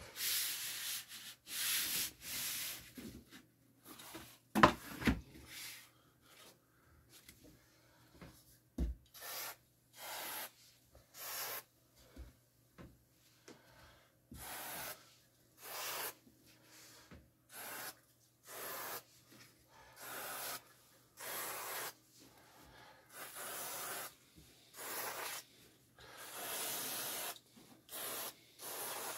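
Repeated rubbing strokes over wooden boards, each about half a second to a second long, with pauses between. Near the end come short hissing bursts from an aerosol spray can.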